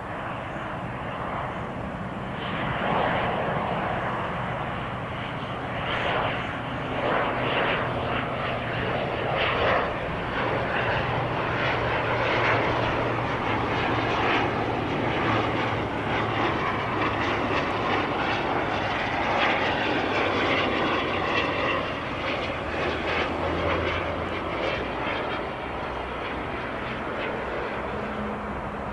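Learjet business jet's twin rear-mounted turbofan engines on landing approach: a steady jet rush that grows louder a few seconds in as the aircraft comes close, then eases somewhat as it flares over the runway.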